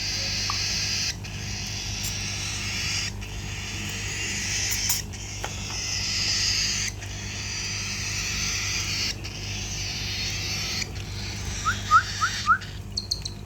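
Baby cockatiel giving harsh, rasping begging calls while being hand-fed, in long runs broken by brief pauses every second or two. Near the end come four quick, short rising chirps.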